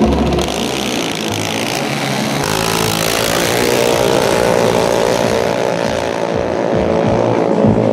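Small dragster launching and accelerating hard down the drag strip, a low thump at the start and then its engine note climbing steadily in pitch for several seconds.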